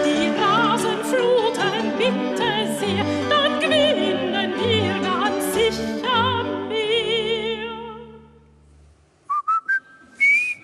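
A woman singing an operatic-style song in German with piano accompaniment, her voice carrying a strong vibrato; the song ends on a long held note that fades out about eight seconds in. Near the end come a few short rising whistles, the last one longer.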